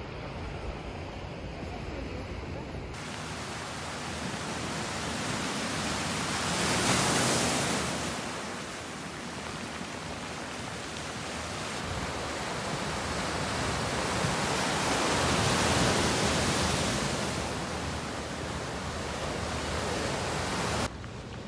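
Sea waves surging and washing over shoreline rocks. The surf swells loud twice, about seven and about sixteen seconds in, and eases between.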